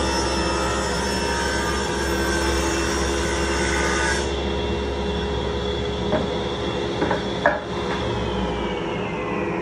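Table saw ripping a padauk board: the blade's cutting noise over the steady motor whine, ending about four seconds in. The saw then runs free, with a few knocks as the cut pieces are handled. Near the end the whine starts to fall in pitch as the motor winds down.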